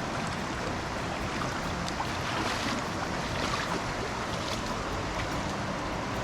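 Steady rushing noise, with a few faint scattered ticks.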